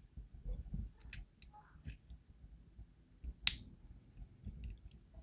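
Small metal lock parts handled during pin removal from a disassembled DOM IX lock: a few sharp, separate clicks and taps over faint handling noise, the loudest about three and a half seconds in.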